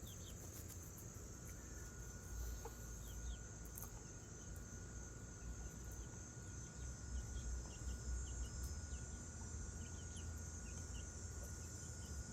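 Backyard chickens softly clucking and peeping as they forage, in short scattered calls over a steady high drone of insects. A faint steady whine joins in about a second and a half in.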